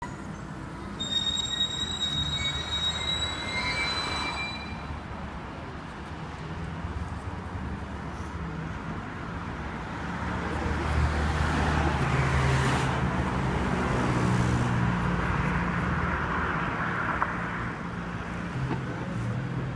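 Street traffic with a steady low engine hum. A high, thin squeal sounds from about a second in for a few seconds, and a passing vehicle swells loudest around two-thirds of the way through.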